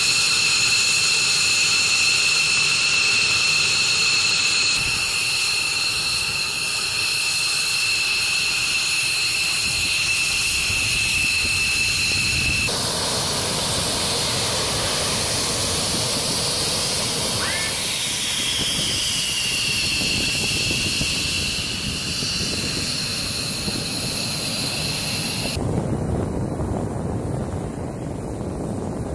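F-15E Strike Eagle jet engines running on the ground: a steady high turbine whine over a loud rushing hiss. The whine dips in pitch and recovers about two-thirds of the way through, and near the end it drops away, leaving a lower rushing rumble.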